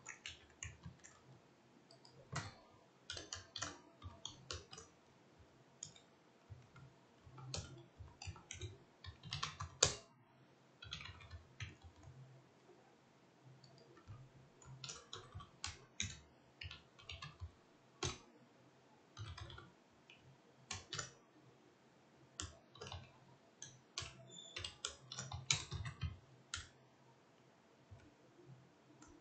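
Computer keyboard typing: irregular runs of keystrokes with short pauses between them.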